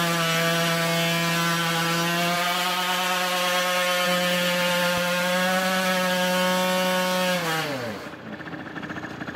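Fantic supermoto's single-cylinder two-stroke engine held at high revs with a steady, unchanging note, then the revs fall away near the end as the throttle is let off.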